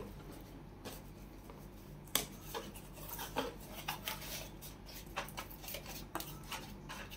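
Cardboard box being opened by hand: scattered rustling, scraping and short sharp clicks of card and packaging, with the sharpest snap about two seconds in.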